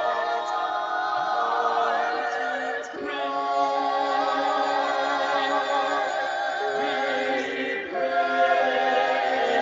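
Choir singing slow, held chords, the harmony shifting to new chords about three seconds and again about eight seconds in.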